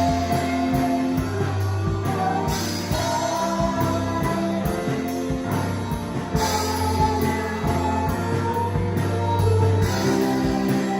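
Live worship band music: guitar and sustained chords over a steady bass and beat, with cymbal swells every few seconds.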